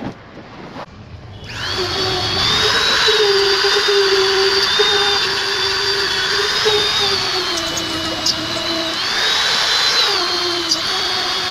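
Handheld electric rotary tool starting up about a second and a half in, then running steadily at high speed, with a high whine whose pitch sags a little now and then as it is pressed against the work.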